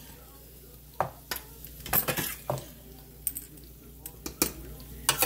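A spoon scraping and clinking against a pot as thick beef stew is stirred, in a handful of separate strokes.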